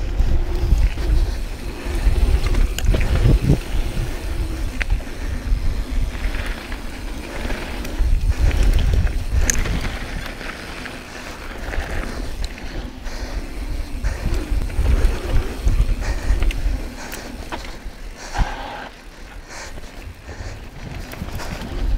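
Riding a Yeti SB6c carbon full-suspension mountain bike down a dirt singletrack: wind buffeting the camera microphone over the tyres rolling on dirt, with scattered clicks and rattles from the bike. It gets quieter for a couple of seconds near the end.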